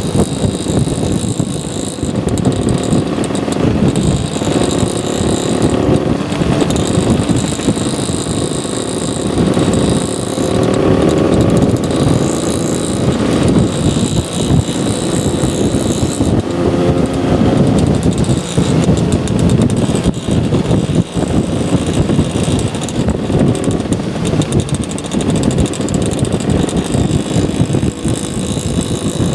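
Motor scooter engines running at road speed while riding in a group, the engine note wavering slightly. Heavy wind buffeting on the helmet-mounted microphone.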